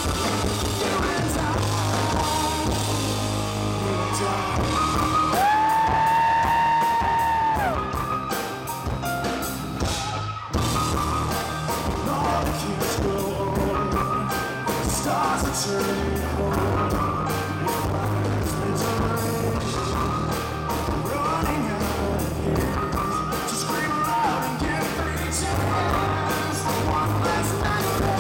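Rock band playing live: a male lead vocal over electric guitar, bass and drums with a steady beat. The singer holds one long note about six seconds in, and the band stops for a moment around ten seconds in.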